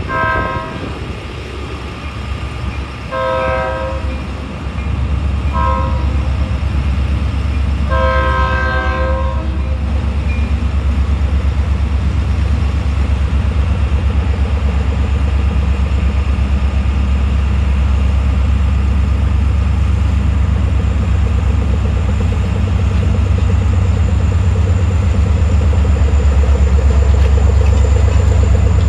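Horn of an EMD SD40-2 diesel locomotive sounding the grade-crossing signal: two long blasts, a short one, then a final longer blast. The lead locomotives' diesel engines then run as a deep, steady rumble that grows slowly louder as the train approaches.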